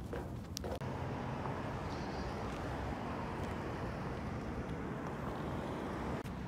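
Steady outdoor city background noise, a constant hum of distant traffic, with a few light clicks in the first second.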